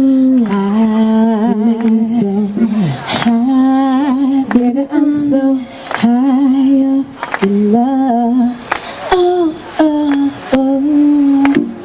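A woman singing wordless, melismatic runs with vibrato, in short phrases broken by brief pauses.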